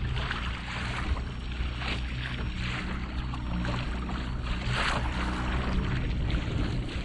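Watersnake electric motor driving a kayak at top speed, a steady low hum under the rush and splash of chop against the hull, with a louder splash about five seconds in.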